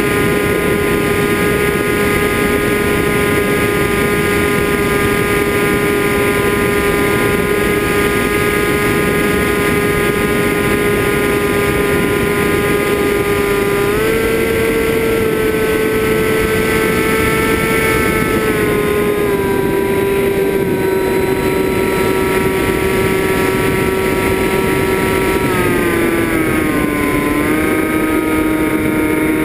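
FPV quadcopter drone's motors and propellers whining steadily over a rushing noise. The pitch steps up about halfway through, then drops back in two steps near the end as the throttle changes.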